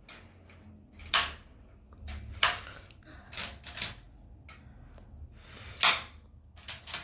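A toy game being played by hand: about six sharp clacks and knocks at uneven intervals, the loudest about a second in, about two and a half seconds in, and near six seconds.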